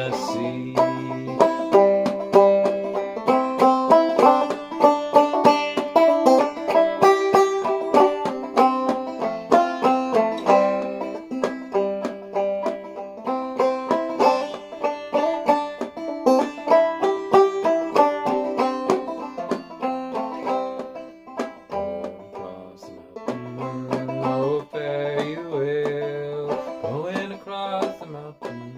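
Five-string banjo in a sawmill variant tuning (eDGCD) playing an instrumental break in the key of C, a steady run of plucked notes, dipping quieter a little past the middle, with some sliding notes near the end.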